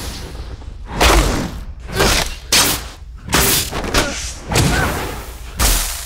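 Designed magic-spell sound effects: a rapid series of about seven sudden blasts and impacts, one every half second to a second, each dying away quickly as spells strike in bursts of sparks.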